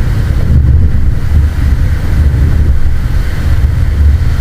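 Loud wind rumble buffeting the microphone over the wash of surf, pulsing unevenly with the gusts.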